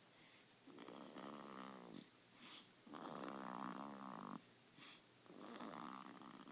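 Baby snoring while asleep in a car seat: three faint snores, each about a second and a half long and coming about every two and a half seconds. The parent feels the upright car-seat position adds to the snoring.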